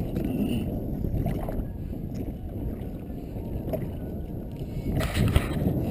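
Wind buffeting the camera microphone over water lapping against a kayak hull, a steady low rumble, with a brief louder noise about five seconds in.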